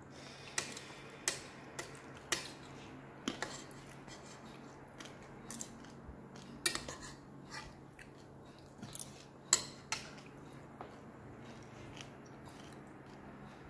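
Metal spoon and fork clinking and scraping against a plastic bowl while eating, in irregular sharp clicks spread through the span.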